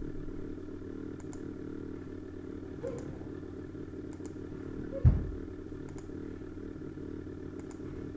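A steady low mechanical hum, with faint light ticks every second or so and one dull thump about five seconds in, the loudest sound.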